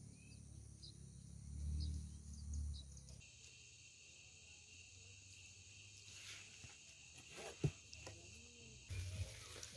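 Faint night-time crickets chirping in a steady high chorus. It follows a few seconds of low rumble with scattered small chirps. One sharp knock comes about two seconds before the end.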